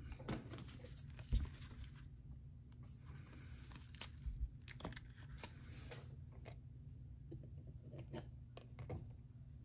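Trading-card pack wrapper being torn open and the cards handled: faint scattered crinkles and clicks, the sharpest about a second in, over a steady low hum.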